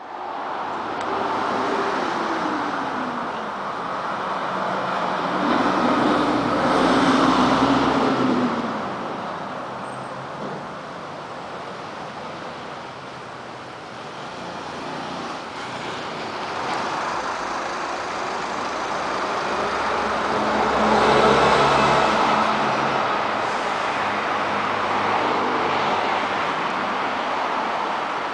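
City street traffic: motor vehicles run past steadily, with two louder pass-bys, one about six to eight seconds in and another about twenty-one seconds in.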